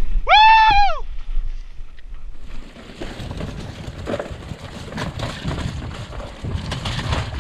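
A short, high, wordless yell near the start. Then a mountain bike running fast down a rough dirt trail: tyres rumbling over dirt and roots, with knocks and rattles from the bike and wind on the microphone.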